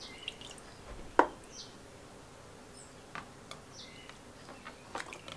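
Metal rod with small parts on wire hooks being lifted from a zinc electroplating bath and laid across a plastic tub of rinse water: a sharp click about a second in, then a few lighter clicks and clinks of metal on the tub rims.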